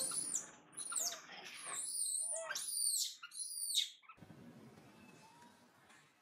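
Baby long-tailed macaque giving a run of shrill, high-pitched squeals, each falling in pitch, about six in four seconds; they stop abruptly about four seconds in.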